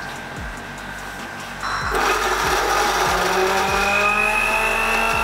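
Small electric kitchen blender switched on about two seconds in and running steadily, mashing water-soaked puppy kibble into a porridge. Background music with a steady beat plays throughout.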